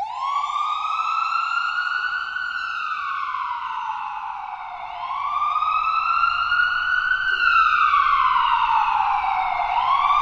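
Ambulance siren wailing: its pitch climbs, holds briefly and slides back down in slow cycles of about five seconds, about two full cycles in all. It starts abruptly and grows louder about halfway through.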